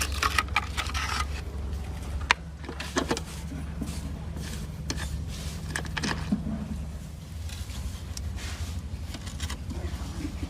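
Scattered clicks, knocks and short scrapes, as of parts and tools being handled, over a steady low hum.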